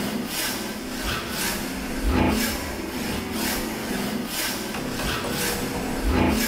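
Experimental soundtrack of rhythmic rasping, scraping strokes about twice a second over a low held tone, with a deep thump about every four seconds.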